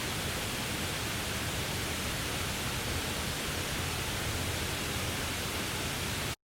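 Steady hiss of rain falling on a camp tarp, cutting off suddenly near the end.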